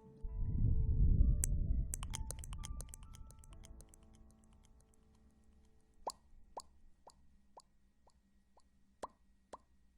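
ASMR sound effects. A low whooshing rumble swells up and fades over the first three seconds under soft, sustained ethereal notes. From about six seconds in comes a string of soft, echoing plops, about two a second.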